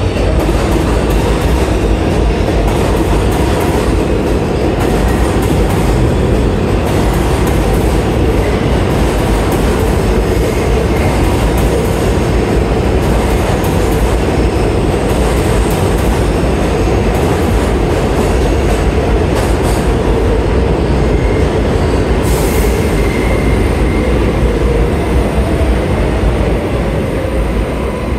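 New York City Subway 7 train (R188 cars) running alongside the underground platform, a loud steady rumble of wheels and cars. A brief hiss comes about three quarters of the way through.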